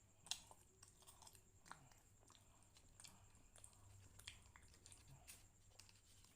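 Faint close-up chewing of soft, chewy martabak manis (thick sweet pancake): irregular small wet mouth clicks, the sharpest about a third of a second in.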